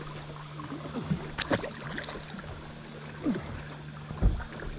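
A steady low hum with scattered knocks and small water sounds around a small fishing boat. The hum stops about four seconds in, just as a louder thump is heard.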